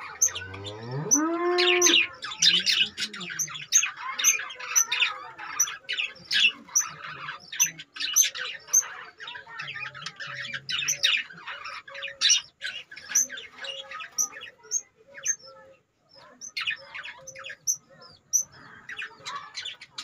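Budgerigars chattering and warbling, a dense stream of quick chirps and squawks. In the first two seconds a low drawn-out call rises in pitch under the chatter.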